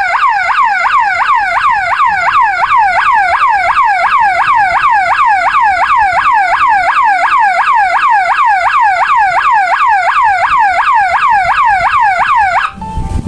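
12-volt electronic horn siren sounding a fast repeating falling wail, about three sweeps a second, then cutting off suddenly near the end. The alarm has been set off by the dual beam sensor's tamper switch as the sensor cover is opened.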